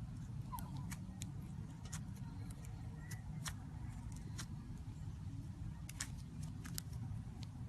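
Slime being squeezed and worked by hand, giving off irregular sharp little clicks and pops over a steady low rumble.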